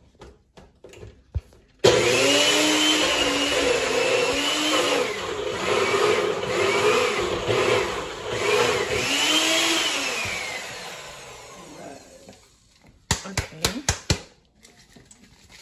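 NutriBullet personal blender grinding Flamin' Hot Cheetos into crumbs. The motor starts abruptly about two seconds in, runs loud for about eight seconds with its pitch wavering up and down as the chips break up, then winds down. Near the end, a few sharp clatters as the cup is handled off the base.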